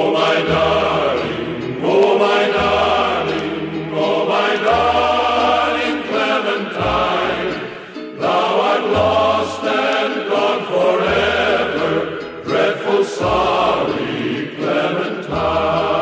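Background music: a song with a vocal melody over a low bass note that changes about every two seconds.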